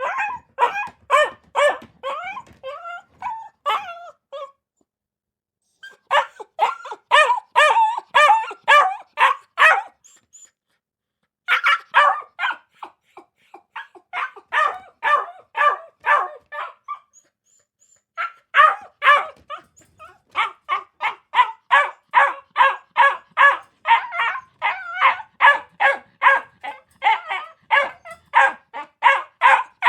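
A dog barking in fast runs of about two to three barks a second, broken three times by short pauses.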